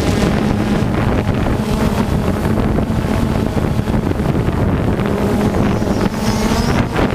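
Radio-controlled off-road racing cars running on a dirt track, their motors buzzing steadily, with wind rushing on the microphone.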